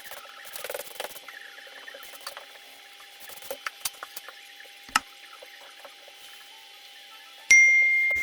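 Scattered light taps and rustles, then a single sharp ding about seven and a half seconds in that rings on as one clear tone and slowly fades.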